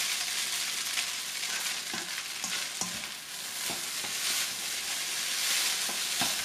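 Rice noodles with egg and napa cabbage sizzling in a hot oiled wok while being stirred with a spatula, which knocks and scrapes against the pan about once a second over the steady frying hiss.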